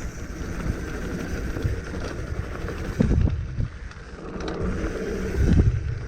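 Mountain bike rolling down a muddy dirt trail: steady tyre and frame rumble with wind on the microphone, and a heavier thud about three seconds in and again near the end as the bike hits bumps.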